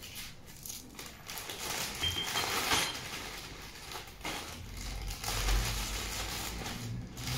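Irregular rustling and crinkling of plastic packaging as bags of parts are pulled out of a cardboard box, with a few dull bumps of handling about two-thirds of the way in.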